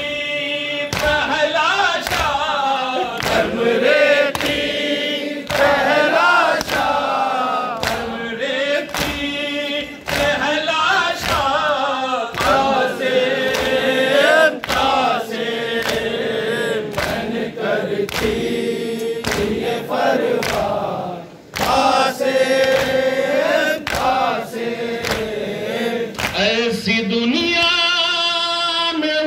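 A male reciter chanting a Urdu nauha (Shia lament) over a microphone, with a crowd of mourners chanting along. A steady beat of chest-beating (matam) keeps time, about three strokes every two seconds.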